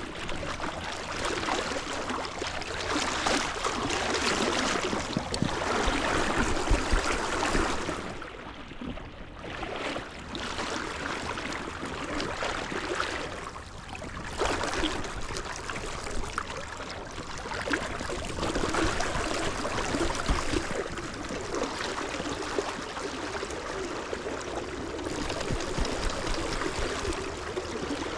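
River water flowing and rippling, a steady rush that swells and eases.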